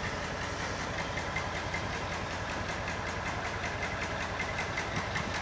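General Motors G-22 diesel locomotive's two-stroke engine running steadily at low power as the train rolls slowly into the station, with a quick, even knocking beat.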